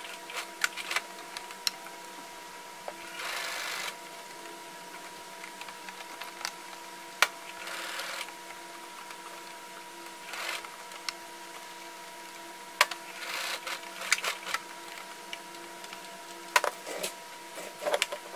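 Brother household sewing machine stitching through thick nylon strap webbing in several short runs, with sharp clicks between the runs.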